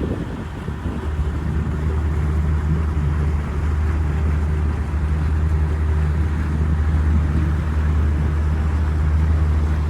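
Boat motor running steadily at an even speed, a constant low hum.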